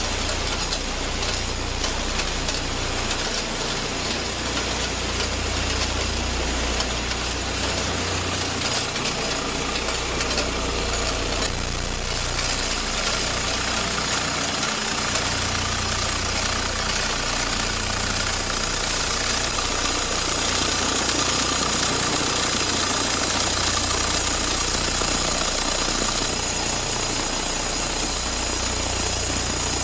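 Steady din of cutlery-factory machinery running, a continuous mechanical rumble and hiss. About twelve seconds in it shifts slightly, taking on more hiss and a faint steady whine.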